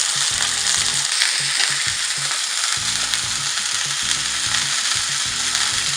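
Pieces of chicken breast sizzling steadily in hot sunflower oil in a frying pan, freshly turned over to fry the second side.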